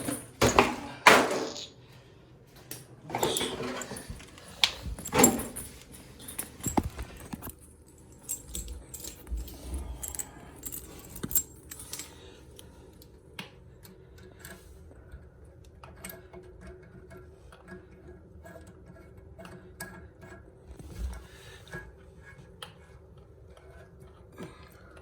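Stainless steel bidet hose and its metal fittings being handled: a run of jangles, clinks and rustles, loudest in the first six seconds, then scattered light clicks while the end cap is unscrewed from the hose and it is readied for the T-valve.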